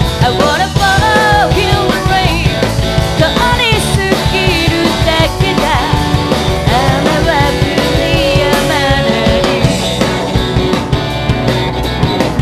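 Live rock band music playing loud and steady, with a melodic lead line bending in pitch over the band during the first half.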